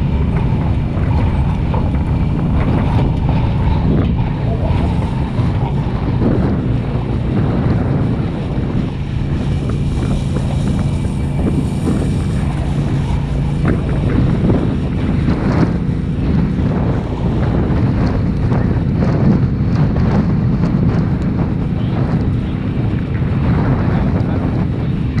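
Grass-fire rig's engine running steadily as the truck creeps along the fire line, with wind buffeting the hood-mounted microphone.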